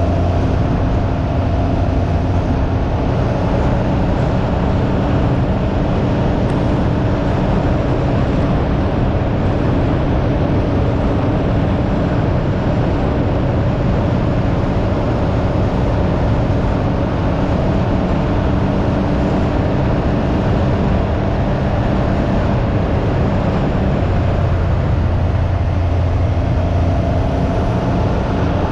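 Can-Am Ryker 900's three-cylinder Rotax engine running steadily under way, with heavy wind noise over the microphone. The engine note shifts slightly near the end.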